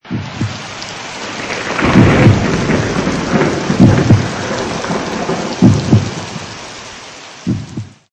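Thunderstorm sound effect: a steady hiss of rain with several low thunder rumbles, the loudest about two and four seconds in. It cuts off suddenly near the end.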